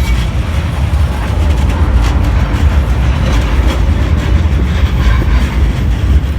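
Strong wind buffeting the microphone: a loud, low rumble that keeps rising and falling.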